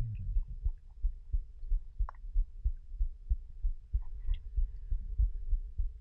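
Small waves lapping and knocking against a floating foam block and the camera at the waterline: low, irregular thumps, with a faint steady hum underneath and one short click about two seconds in.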